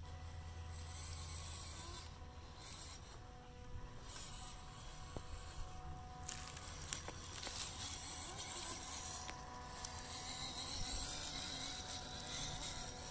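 The electric motor and gears of a 1/10-scale WPL D-42 RC van giving a thin, steady buzzing whine as it crawls through shallow water. From about halfway through, hissing splashes and small clicks from the tyres in the water and on stones join in.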